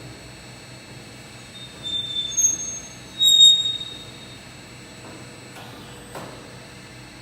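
Three-roll bending machine running with a steady low hum while metal squeals high and shrill twice, as the tube or profile works against the rolls; the second squeal is the louder and briefer.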